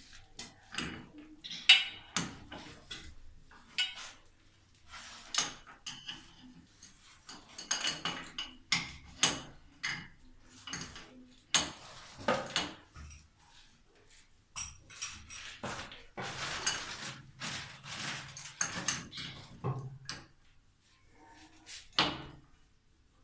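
Irregular metallic clinks, taps and short scrapes of a hand tool working on a bidet's metal supply pipe and flexible hose fittings.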